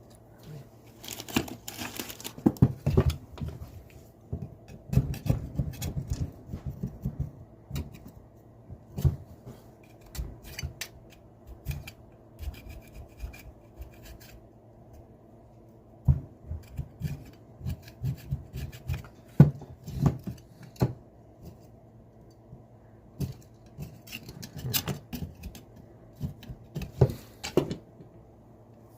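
Brink and Cotton bench vise being handled and worked, its freshly oiled jaw and screw being moved: irregular metal clinks, knocks and scraping, in bursts with short pauses.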